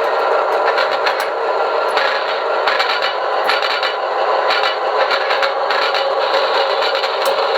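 Model-train sound system's running sound played through a small speaker: a steady rushing hiss with irregular clicks and clatter throughout.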